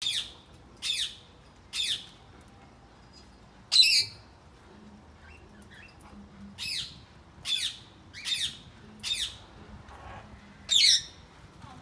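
Parrots calling: short, high-pitched squawks about once a second, with a pause in the middle and faint twitters between them. Two of the squawks are louder than the rest.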